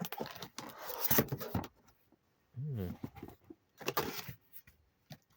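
Cardboard packaging being handled: rustling and light knocks as the box flaps and inner box are opened, in two short spells.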